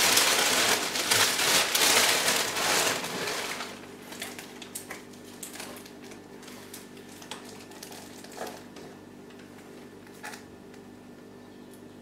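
Plastic sleeve and newspaper packing crinkling and rustling as a potted orchid is lifted out of a cardboard box. Loud for the first three seconds or so, then dying down to occasional small rustles and clicks.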